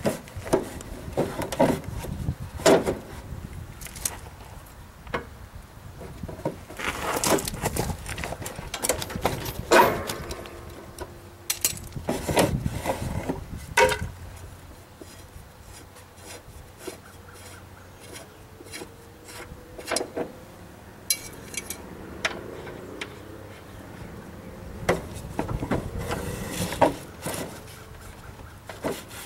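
Irregular knocks, clanks and short scraping sounds of hand work with tools on a lawn mower, over a steady low hum of a shop fan.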